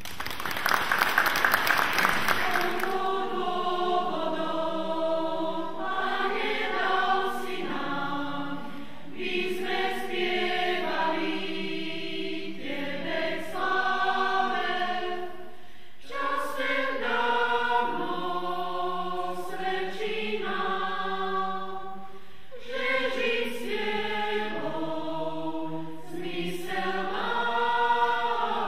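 Applause for about the first three seconds, then a mixed church choir singing in phrases, with short pauses between them.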